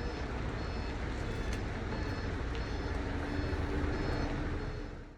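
Trucks running in a service-area lot: a steady engine rumble, with a truck's reversing beeper sounding short, repeated high beeps. The sound cuts off suddenly near the end.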